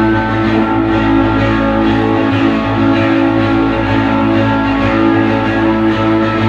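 Live band playing an instrumental passage: guitars hold long, sustained chords at a steady, loud level, with no singing.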